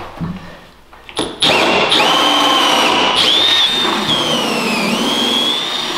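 Cordless drill held in a portable drill guide boring a hole into an oak floor. It starts with a short blip about a second in, then runs steadily with a high whine that sags in pitch as the bit bites, about four seconds in, and recovers.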